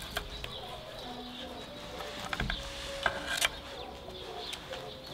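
Birds and farm animals calling in the background, with short held calls and chirps. A few sharp clicks and knocks come a little past halfway.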